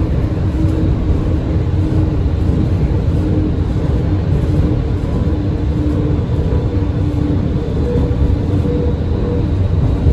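Končar TMK 2300LT low-floor tram running along the track, heard from inside the passenger area: a steady rumble of wheels on rails with a faint whine from the drive.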